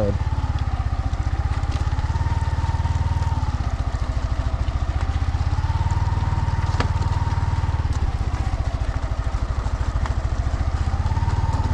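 Yamaha motorcycle engine running in a low gear at low speed over loose rocks, its note rising and falling gently with the throttle. A sharp click about 7 seconds in.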